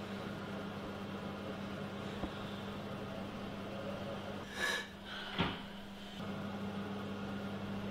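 Steady low electrical hum. It drops out briefly about halfway through, when a short rustling burst and a sharp click are heard, then the hum returns.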